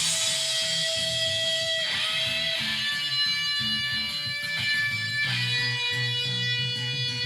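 Background music: an instrumental guitar passage of a pop-rock song, with sustained notes over a steady bass.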